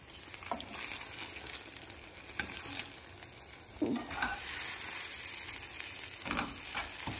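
Scrambled eggs with chicken strips and corn sizzling in a frying pan, with a spatula stirring and scraping against the pan a few times.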